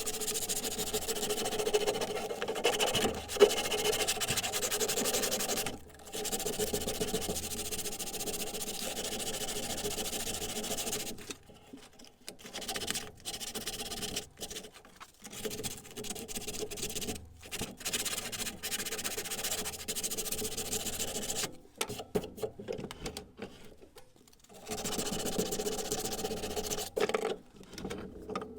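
A small motor-driven workshop tool running with a rubbing, rasping noise on the workpiece. It stops and restarts several times: long runs at the start and near the end, shorter bursts in between.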